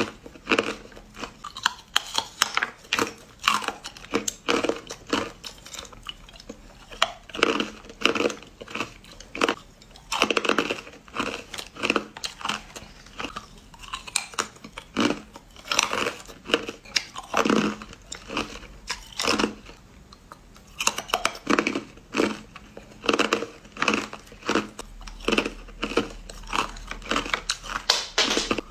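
Hard crushed ice being bitten and crunched between the teeth, a close, rapid run of sharp cracking crunches, several a second, with short pauses between mouthfuls.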